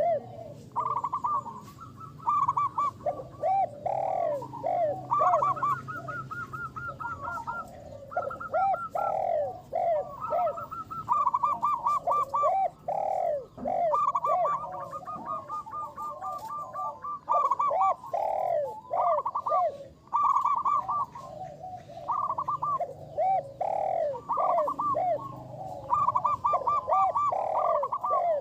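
Zebra dove (perkutut) cooing in repeated phrases of short arched notes, with quick trilled runs between them.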